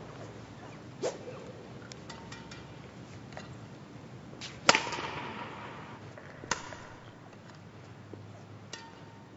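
Badminton racquet striking shuttlecocks: about four sharp cracks, the loudest a little under five seconds in, each echoing through a large sports hall.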